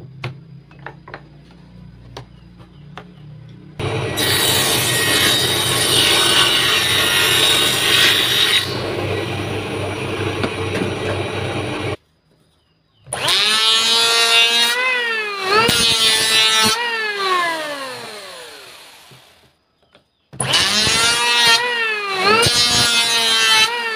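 Table saw ripping hardwood for several seconds. After a short break, an electric hand planer runs in passes over the wood: its motor pitch dips and recovers with each pass and winds down once.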